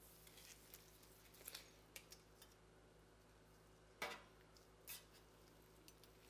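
Quiet room tone with a few light clicks and taps against the stainless steel dye pan and its plastic zip ties, the sharpest about four seconds in as a gloved hand handles the edge of the pan.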